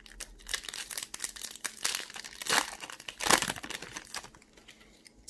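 Foil wrapper of a Pokémon trading-card booster pack crinkling as it is torn open and the cards are pulled out, with two louder crackles about two and a half and three and a half seconds in.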